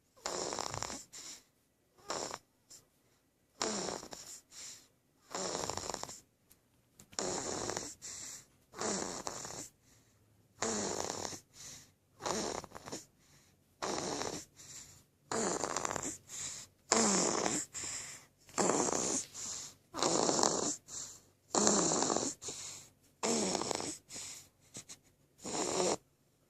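Loud snoring from a two-week-old, short rasping snores about once a second in a steady rhythm.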